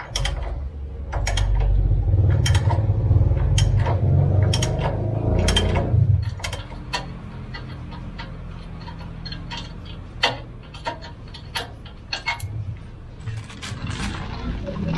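Hand-work noises of fitting a rubber bump stop into a rear coil spring. Sharp clicks come about once a second over a low rumble for the first six seconds, then fainter scattered clicks and rustling.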